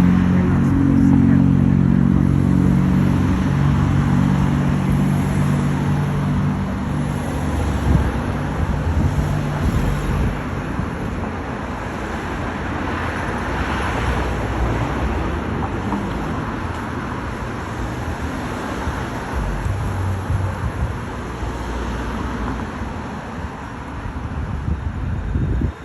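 Street traffic: a nearby motor vehicle's engine gives a steady low hum for the first ten seconds or so, then it fades into general road noise.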